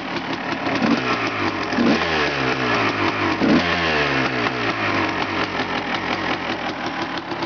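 1991 Honda CR250's two-stroke single-cylinder engine running. The throttle is blipped three times, about one, two and three and a half seconds in, and each time the revs sink back, before it settles into a steady idle.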